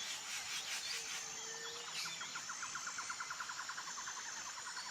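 Rainforest wildlife ambience: a steady high insect drone over a soft hiss, a short low whistled note about a second in, and from about two seconds a fast, even chirping trill of about ten pulses a second.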